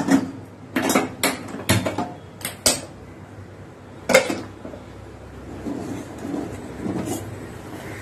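Stainless steel pots and a spoon clanking on a gas stovetop as the vessels are shifted about: a quick series of sharp metal knocks in the first three seconds and one more about four seconds in.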